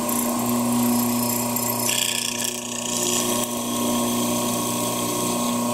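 Felder FD250 horizontal boring machine running with a steady hum, its hollow square-chisel auger turning at 1500 rpm. About two seconds in, the chisel is fed into the wood, and a harsher cutting sound rides over the hum for about a second and a half.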